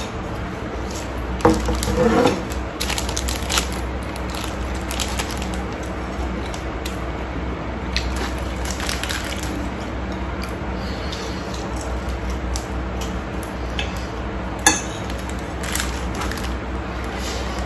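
Eating sounds: fried instant noodles slurped and chewed, with a fork clinking and scraping on a plate and a sharp clink near the end, over a steady low hum.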